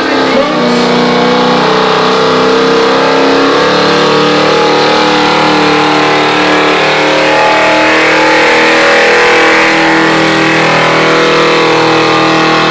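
1970s Ford pickup's engine running hard at steady high revs under full load while pulling a weight-transfer sled.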